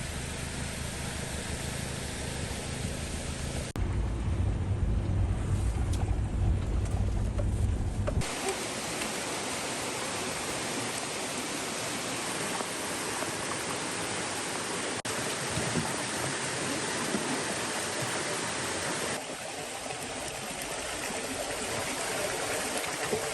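A low rumble with a steady hum for the first eight seconds, then a steady rushing of water, with abrupt cuts between the segments.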